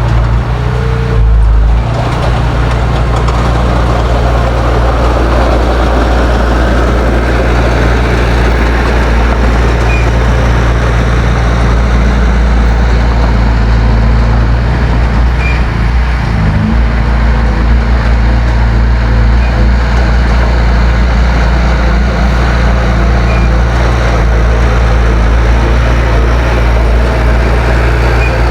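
Heavy earthmoving machine's diesel engine running steadily under work, with a brief dip in pitch just past halfway before it settles again.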